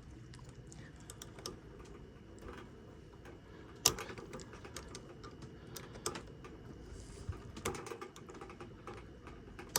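Scattered small clicks and taps of hands handling parts inside a bread maker being taken apart, with one sharp click about four seconds in and a quicker run of clicks near the end.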